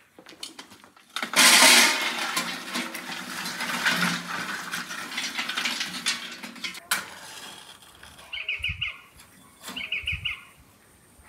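Lump charcoal poured from a metal bucket into a metal fire drum, clattering and rattling for about five seconds. Near the end, two short bursts of quick clicking as a lighter is struck twice.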